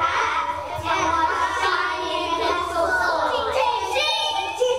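A group of young children singing together on stage.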